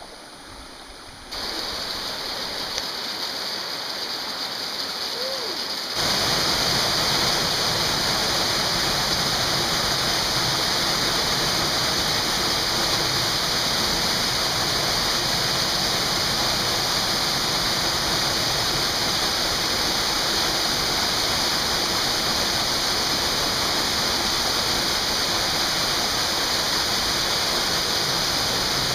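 Small waterfall rushing steadily down a narrow rock slot. The sound steps up slightly a little over a second in, jumps louder about six seconds in, then holds steady.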